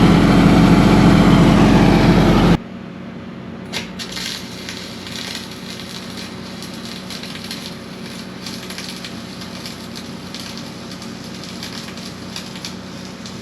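An engine runs steadily for about two and a half seconds, then cuts off abruptly. After that comes the steady crackle of a wire-feed welder laying a bead of dual-shield flux-cored wire on steel frame tubing.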